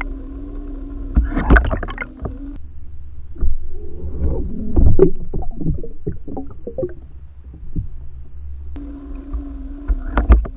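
Muffled underwater sound from a submerged camera: a constant low rumble with a steady hum that stops after about two and a half seconds and returns near the end, and irregular knocks and clicks throughout, the loudest about one and a half and five seconds in.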